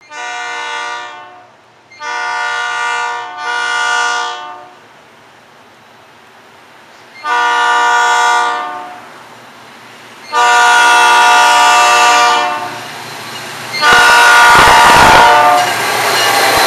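Diesel freight locomotive's multi-note air horn sounding six blasts, the second and third nearly running together. During the last blast the locomotive passes close, and its engine and wheel rumble come in loud under the horn.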